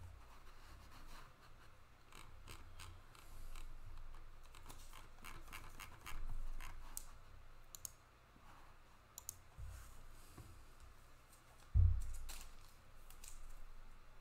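Trading cards being handled and sorted on a table: soft slides, clicks and scratches of cards against each other and against the tabletop. Two dull low thumps come in the second half, the second the loudest.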